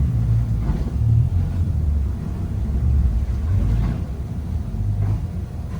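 Three Yamaha 350 hp outboard engines running at low throttle as the boat is manoeuvred, a low uneven rumble that swells and eases.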